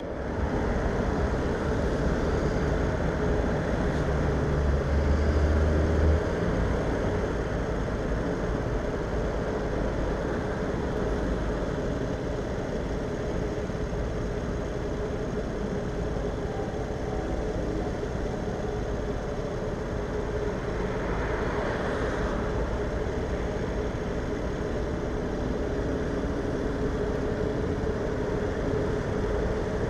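Vespa scooter engine idling steadily while stationary, with the low rumble of surrounding car traffic; the rumble is heavier in the first few seconds, and a passing vehicle swells briefly about two-thirds of the way through.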